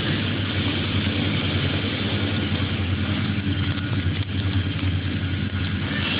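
A steady drone from a running motor or engine: a low hum with a hiss over it, even and unbroken.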